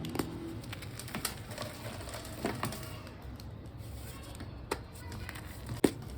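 Blocks of reformed gym chalk crunching and snapping as they are crushed, in separate sharp cracks about once a second, the loudest near the end.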